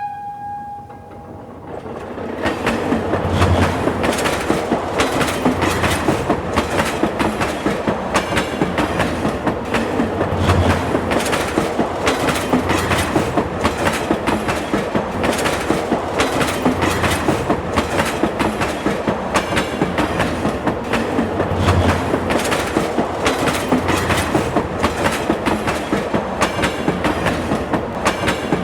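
A train horn's last blast fades out about a second in, then a train rolls past with a dense, rapid clickety-clack of wheels over the rails that goes on steadily.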